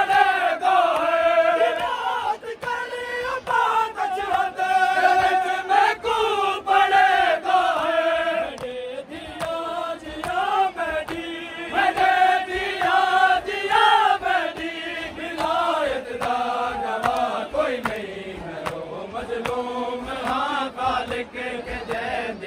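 Men chanting a Punjabi noha, a Shia mourning lament for Imam Ali, in long held, wavering lines, with chest-beating (matam) slaps sounding through it.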